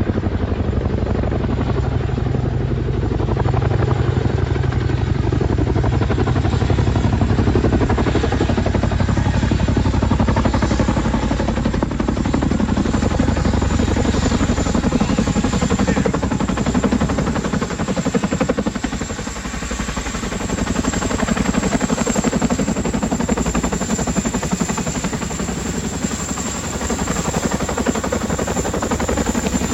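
Boeing CH-47D Chinook tandem-rotor helicopter running loud and close: a fast, continuous rotor chop under a steady high turbine whine that grows stronger near the end.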